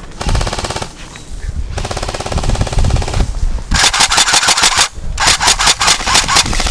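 Airsoft AK electric gun fitted with a Guarder electric blowback kit firing on full auto: four long bursts of rapid, evenly spaced shots with short pauses between, the last running on past the end.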